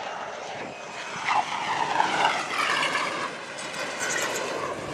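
Jet aircraft engine running: a rushing noise with a whining tone that swells about a second in and eases toward the end.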